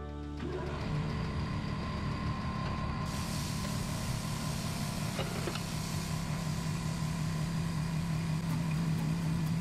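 Compressed air hissing through a tyre changer's inflation hose into a newly mounted low-profile tyre, over a steady low hum of shop machinery; the hiss starts about three seconds in.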